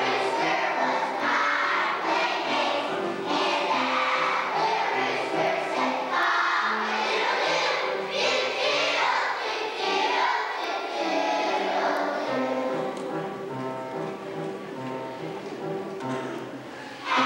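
Young children's choir singing a song together. The singing grows softer for a few seconds in the second half, then swells louder again right at the end.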